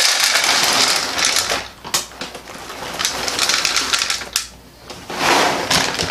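Dry ferret kibble pouring and rattling into the plastic pan of a kitchen weighing scale, in three pours with short pauses between.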